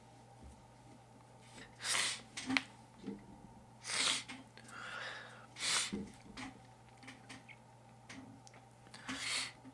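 A man sniffling while crying: about four sharp sniffs spread through, with small clicks and rustles between.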